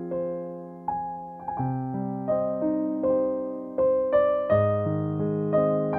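Background music: slow, gentle piano playing struck notes and chords that fade out one after another.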